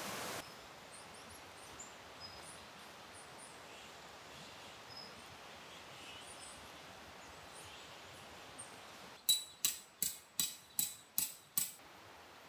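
Quiet forest ambience with faint, scattered bird chirps. Near the end come seven sharp clicks in an even quick series, about two or three a second, each ringing briefly; they are the loudest thing here.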